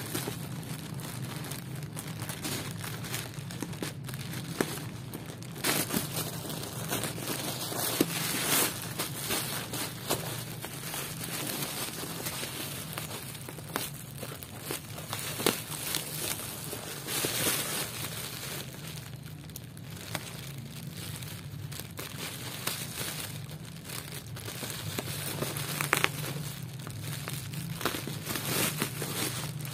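Plastic packaging crinkling and rustling as a thin black plastic bag and air-cushion bubble wrap are handled and cut open with scissors, with irregular sharp crackles and snips. A steady low hum runs underneath.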